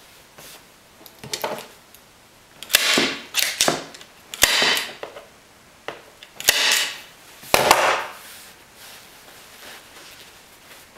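Staple gun driving staples through upholstery fabric into a fibreboard seat base: about five sharp snaps spread over some five seconds, each trailed by a brief noisy rasp.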